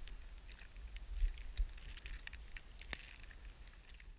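Wind buffeting a handheld camera's microphone as a steady low rumble, with scattered small clicks and crackles and one sharper click about three seconds in.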